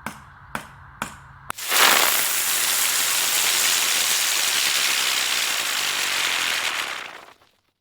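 Three sharp knocks about half a second apart, then a loud steady hiss-like noise that starts suddenly and cuts off shortly before the end.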